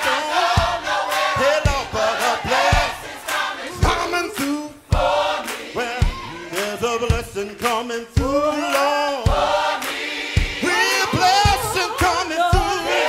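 Gospel song: a choir singing over band accompaniment with a steady drum beat.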